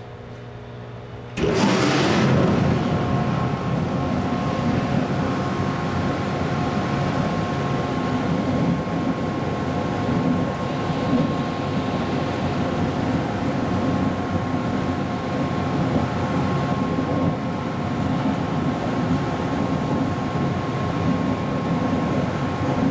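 Breddo LDT 50-gallon stainless-steel liquefier starting up: its bottom-mounted impeller comes on suddenly about a second and a half in and then runs steadily, churning the water in the tank with a rushing noise under a steady motor whine.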